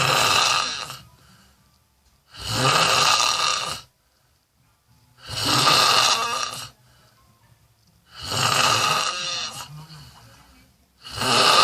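A person snoring loudly, each snore about a second and a half long, repeating roughly every three seconds with quiet breaths between.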